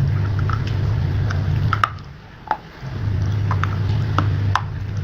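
Close-miked biting and chewing of pieces of slate: many short, sharp crunches and crackles, irregularly spaced, over a low rumble that drops out for about a second around two seconds in.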